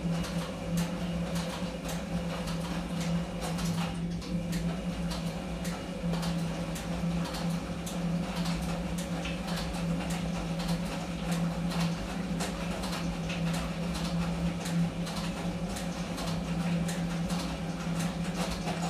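Small Eudora Goldkind EU 340 washing machine (2.5 kg) running its wash: a steady motor hum with frequent light clicks and knocks from the churning load.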